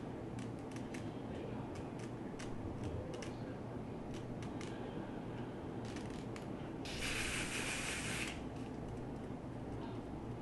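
Small scissors snipping through wig lace: a run of light, quick snips over the first six seconds. About seven seconds in, one spray from an aerosol can of lace spray lasts about a second and a half and is the loudest sound.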